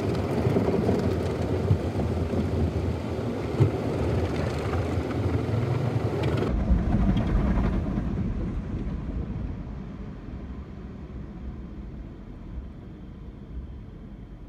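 Automatic car wash heard from inside the car: brushes and water working against the windshield. About six seconds in the sound changes abruptly, then fades away over a couple of seconds as the wash machinery cuts off mid-cycle, leaving only a low hum.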